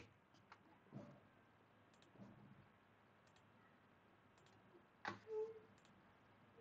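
Faint computer mouse clicks, a few scattered single clicks, with a louder click about five seconds in followed by a short low tone; otherwise near silence.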